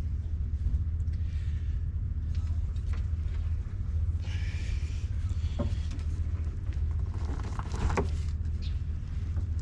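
Ford Escape's engine idling with a steady low exhaust rumble, and a few light clicks of handling near the back of the car.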